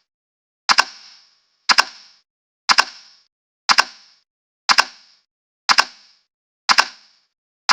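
Timer sound effect ticking once a second: each tick a sharp double click with a short fading tail.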